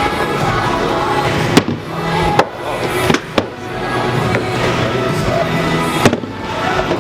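Arcade game music, with about five sharp knocks of hard balls striking inside a ball-rolling arcade game.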